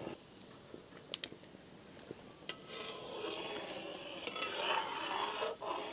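Brass ladle stirring boiling rice in a brass uruli, with a few light metallic clinks against the pan in the first couple of seconds. A faint hiss builds in the second half.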